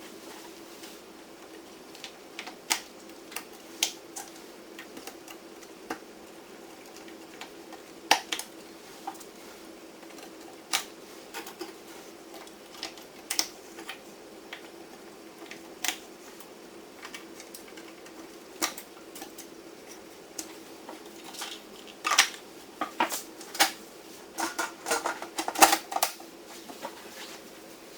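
Sharp clicks and clatter from hand work on a Dell PowerEdge R710 server's parts, spaced irregularly and coming thick and fast near the end, over a steady hum. Everything is sped up to triple speed.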